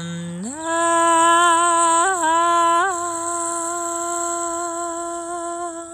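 A woman's voice toning a long sustained vocal note in light-language style. It slides up to a higher pitch about half a second in and holds it, with two brief wavers in the middle.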